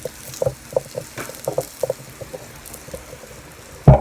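Food sizzling and crackling on an electric grill pan, with irregular small pops, and one loud knock just before the end.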